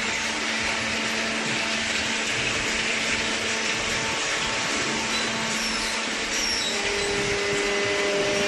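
Cardboard baler's hydraulic power unit running steadily, a constant motor-and-pump noise with a steady hum.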